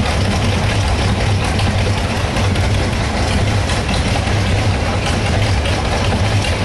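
A large engine idling steadily, with a low, even, rapid throb.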